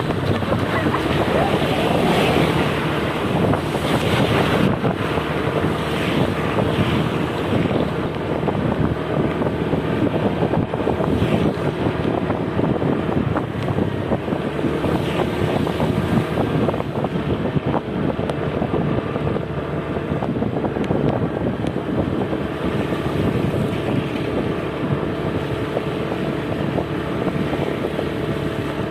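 Bus engine running steadily with wind buffeting the microphone.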